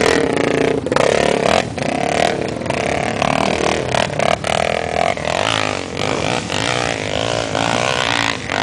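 Off-road motorcycle engines revving, their pitch rising and falling as the throttle opens and closes.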